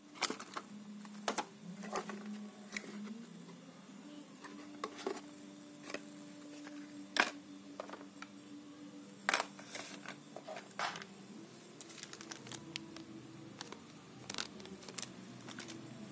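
Cardboard packaging and small items being handled and set down on a wooden table: scattered clicks, taps and light knocks, with a faint steady hum underneath.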